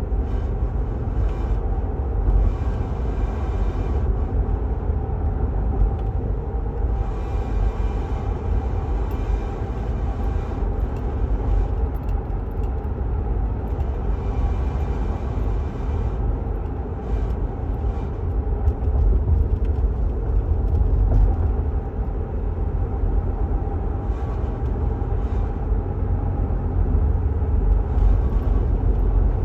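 Third-generation Toyota Tacoma on the move, its steady low road and engine rumble overlaid by a buzzy rattle that comes and goes in spells of a couple of seconds, several times over, with scattered short clicks.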